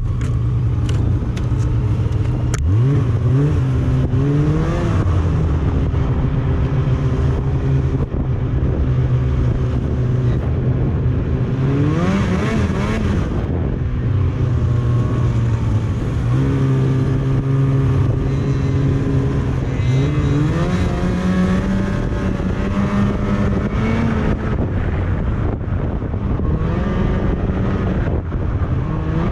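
Snowmobile engine running steadily, its pitch climbing as the throttle opens about three seconds in, about twelve seconds in and about twenty seconds in, then holding at a higher note.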